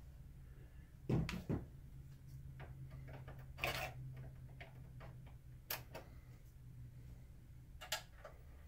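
Scattered light clicks and knocks of a screwdriver and plastic parts being handled inside an opened projector chassis, a few separate taps with a short scrape in the middle, over a low steady hum.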